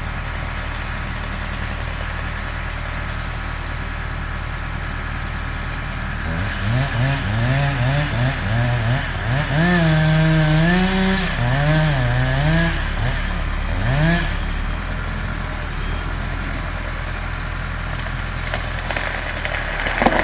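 Chainsaw idling, then revved up and down several times in the middle with a rising and falling pitch, before dropping back to idle.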